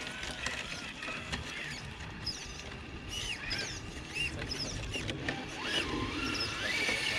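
Electric motors and gearboxes of radio-controlled scale rock crawlers whining as they crawl, the pitch gliding up and down with the throttle and rising near the end.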